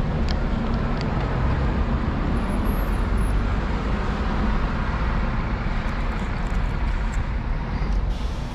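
Steady road traffic noise: a continuous rumble of passing vehicles on a busy street.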